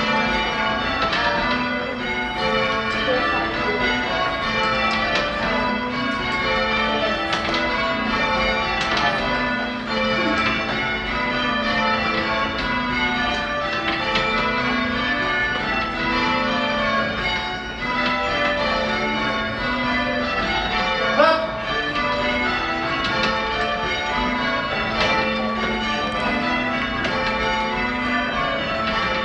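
Change ringing on a Gillett and Johnston ring of six church bells (cast 1925 and 1931, tenor in A), the bells struck one after another in a steady, evenly spaced rhythm with their tones overlapping. A brief sharp sound stands out above the bells about two-thirds of the way in.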